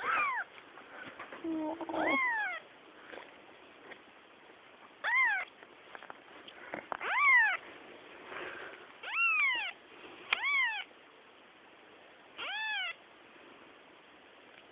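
Very young kitten meowing repeatedly: seven short mews a second or two apart, each rising and then falling in pitch.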